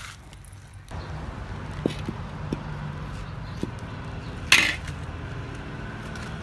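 A metal spatula clanks once, loudly, against an empty steel wok about four and a half seconds in. A few light clicks come before it over a steady low background noise.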